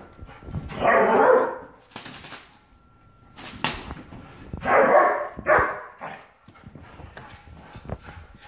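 German shepherd puppy barking in three rough bursts: a long one about a second in, then two shorter ones around five seconds in. Light clicks and knocks in between.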